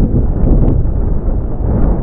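Gusty wind buffeting the microphone: a loud, uneven low rumble that swells and drops, with a few faint clicks.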